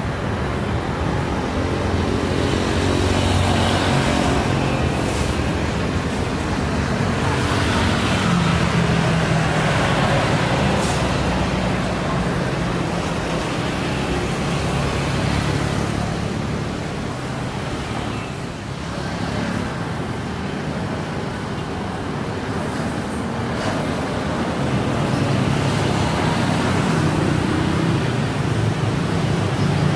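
Airliner jet engines running steadily as a Boeing 737 taxis and turns onto the runway, then the engine noise of an Airbus A320 passing low over the runway with its gear down.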